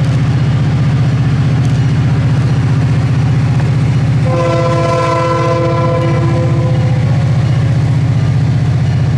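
Diesel locomotive leading an iron-ore train, its engine running loud and steady with a fast low pulsing. About four seconds in, the locomotive's air horn sounds one chord of several tones for about two and a half seconds.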